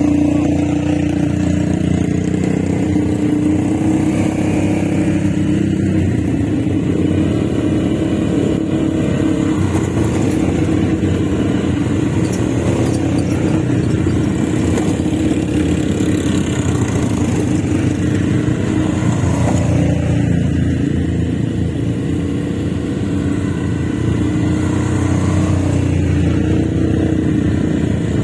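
ATV engine running steadily under way, with a slight easing of level about two thirds of the way through.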